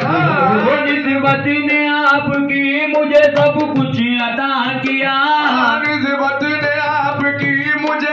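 Urdu devotional song (manqabat) playing: a voice singing a wavering melody over instrumental accompaniment, with a steady low note held underneath.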